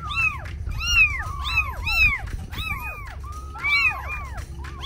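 Several tiny kittens mewing at once: a rapid run of short, high cries that overlap one another, each rising and falling in pitch.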